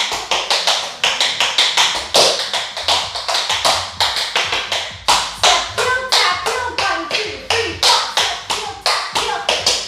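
Tap shoes striking a hard floor in a fast tap dance combination: crisp metal taps from toes and heels, several clicks a second in quick uneven rhythmic runs.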